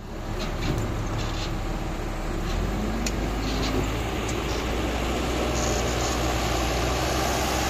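Telehandler's diesel engine running steadily as the machine drives its bucket onto a silage pile, growing louder about two and a half seconds in, with a few light clanks early on.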